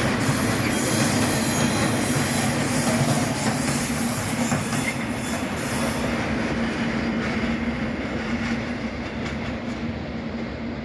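Freight train of open wagons rolling past, with wheels squealing and ticking over rail joints. The squeal stops about six seconds in and the rolling fades away.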